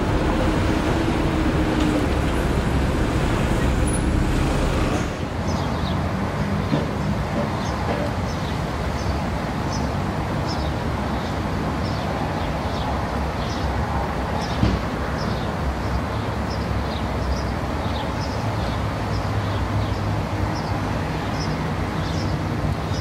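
City street ambience: a steady rumble of road traffic, with a louder rushing noise for the first five seconds or so. After that, short high chirps repeat about once a second over the rumble.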